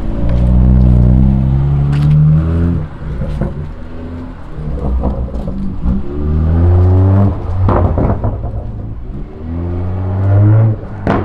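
A straight-piped BMW 840i's turbocharged straight-six exhaust pulling away under acceleration. The engine note climbs, drops back, and climbs again in three pulls. A few sharp pops come between pulls, and a loud crack sounds near the end.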